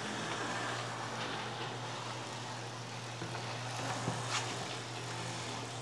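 Gantry of a 6x12 Avid CNC router pushed by hand along its Y-axis rails, the linear bearing blocks rolling on the rails with a steady, even noise. One bearing block has a burst bearing, yet with the gantry's weight on it the sound gives no clear sign of the failure.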